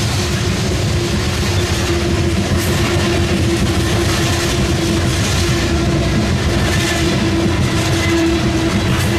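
A BNSF freight train of coal gondola cars rolling past: a steady rumble of steel wheels on the rails with clickety-clack over the rail joints, and a steady tone running underneath.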